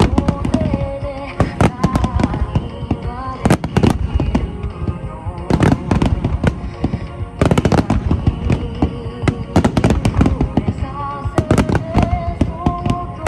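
Large aerial fireworks bursting in rapid volleys of sharp reports, densest in a few clusters, over music playing throughout.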